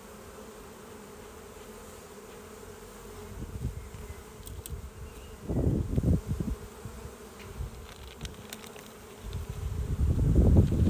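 Honeybees buzzing around an opened hive, a steady hum, with bursts of low rumble about halfway through and near the end.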